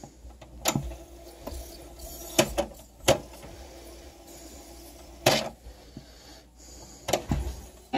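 Quiet gap between songs in cassette playback on a Panasonic SG-J500 boombox: a steady low hum and faint tape hiss, broken by about five short sharp clicks spread through the gap.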